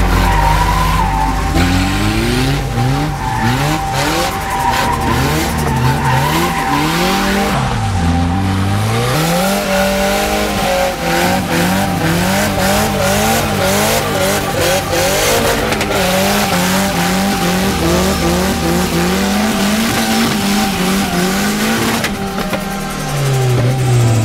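Nissan S13 drift car sliding under power: the engine revs up and down again and again as the throttle is worked, over the screech of spinning tyres.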